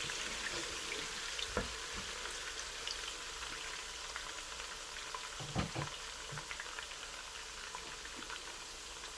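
Onions frying in hot vegetable oil in a pot, a steady sizzle. Two short knocks, at about one and a half seconds and about five and a half seconds in, come as the onions are stirred.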